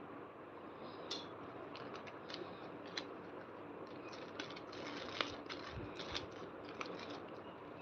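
Fingers handling a small plastic packet of sequin letters, the packet crinkling and the sequins clicking in scattered faint ticks and rustles.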